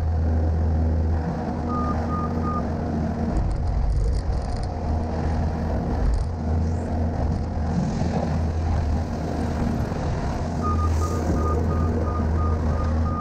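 Skid steer's diesel engine running steadily with a deep hum. A backup alarm beeps in a short run of about four beeps around two seconds in, and again in a steady run over the last few seconds.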